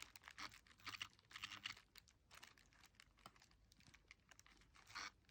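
Near silence, with faint, irregular small clicks and taps.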